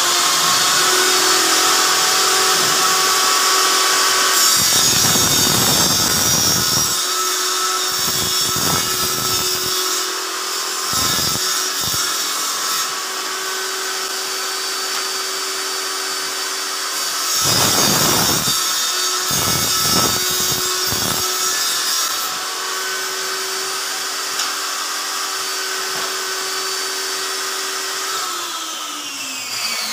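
Makita table saw running with a steady whine, its sound thickening several times as the blade cuts through a sheet being fed across it. Near the end the saw is switched off and the blade winds down with a falling pitch.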